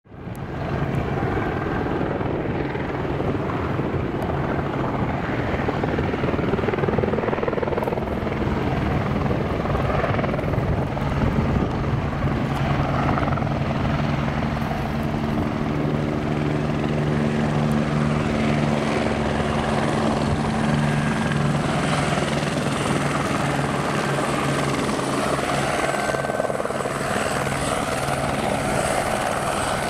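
Eurocopter AS350BA Écureuil (AStar) helicopter flying close by, with its single Turbomeca Arriel turboshaft running: steady rotor and engine noise fading in at the start. A high-pitched turbine whine comes up in the second half as the helicopter draws near and hovers low.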